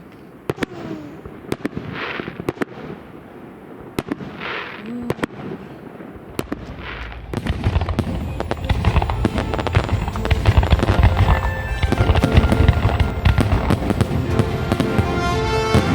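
Fireworks: scattered sharp bangs for the first several seconds, then about seven seconds in a dense, loud barrage of crackling bursts. Music comes in underneath the barrage.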